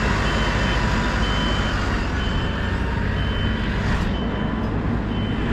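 A vehicle's back-up alarm beeping about once a second over a heavy engine running steadily, as the machine reverses.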